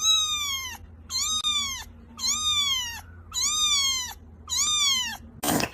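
A cat meowing five times in a steady series, about one high call a second, each rising and then falling in pitch. A short noisy burst comes at the very end.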